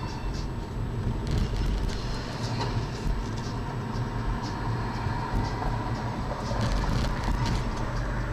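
Car driving slowly in city traffic, heard from inside the cabin: a steady low rumble of engine and tyres on the road.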